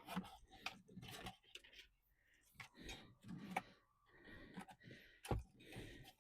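Faint scattered clicks and rustling of a wiring harness and its plastic connectors being handled and fed down through the center console trim.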